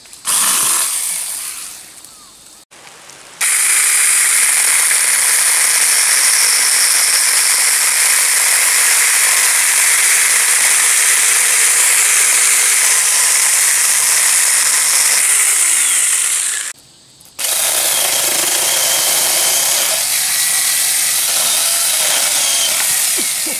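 Small handheld electric chainsaw running and cutting through a tree trunk: a short burst at the start, a long run of about thirteen seconds, a brief stop, then another run.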